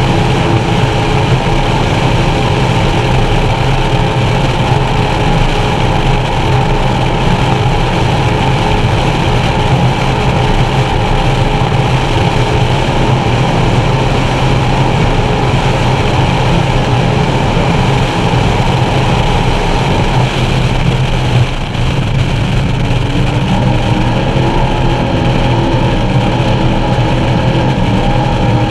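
Skater 368 Supercat offshore racing catamaran's engines running hard at racing speed, heard from inside the closed cockpit along with hull and water noise. The loudness dips briefly about three quarters in, and the engine note shifts after it.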